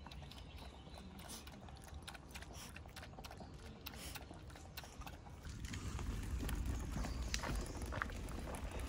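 Footsteps on a forest trail: a run of short, irregular crunching steps. A low rumble rises about halfway through.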